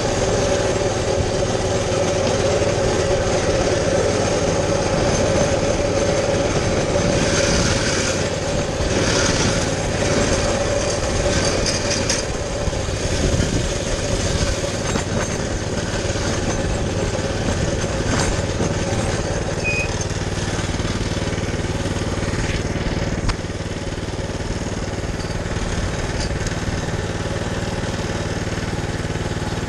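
Baja 200cc motorbike engine running at a steady speed while being ridden, with no big revs.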